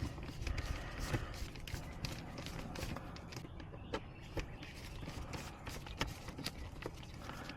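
Irregular small clicks and taps of hand tools and plastic trim parts as small screws are worked out of a car door panel's handle assembly.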